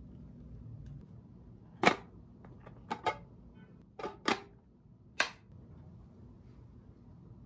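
About six sharp plastic clicks from clear plastic airtight food containers, some in quick pairs. The lid's sealing handle is snapped and released, and the containers are handled.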